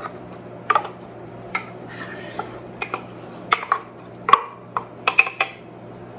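A wooden spoon knocking and scraping tuna out of a tin can over a glass mixing bowl: a run of sharp knocks and clinks, some with a short metallic ring.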